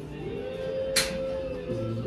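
Background music with held notes and no speech, with one short sharp hit about halfway through.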